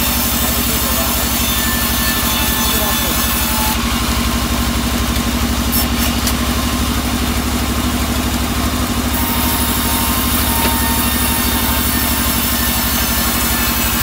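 Sawmill band saw running steadily with its drive engine, pulsing low and even, as a plank of albasia (sengon) wood is fed through the blade. The high hiss changes from about 4 to 9 seconds in, while the board is in the cut.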